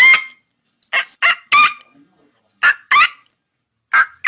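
Pelican calling: a series of short, pitched calls, about seven of them, coming in quick groups of two or three with brief gaps between.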